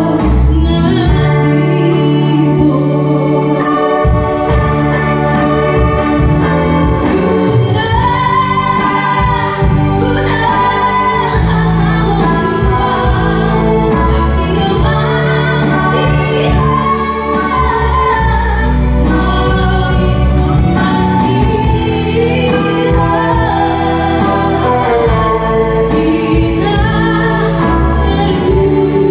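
A woman singing a Toba Batak song into a microphone, backed by a live band with keyboard and electric guitar over a steady bass line.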